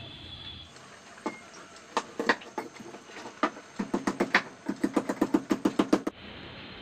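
Wooden pestle pounding ginger and garlic in a small metal bowl. A few scattered knocks come first, then a quick, even run of strokes about five a second that stops suddenly about six seconds in.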